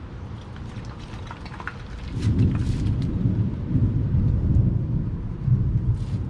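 Thunder rumbling, rising about two seconds in and lasting several seconds.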